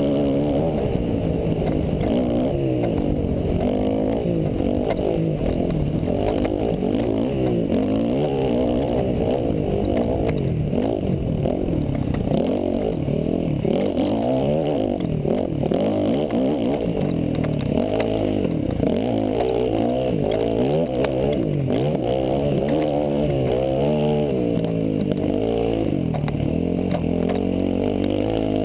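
Dirt bike engine, heard up close from the bike itself, revving up and down over and over as the rider works the throttle along a rough desert trail, with light rattles and knocks from the bike over the ground.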